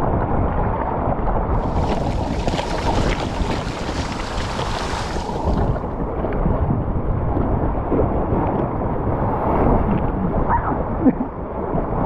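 Water rushing and splashing around an inner tube riding down a tube waterslide, heard from the rider's tube. The rush is steady, with a brighter, hissier stretch of splashing from about two seconds in that lasts about four seconds.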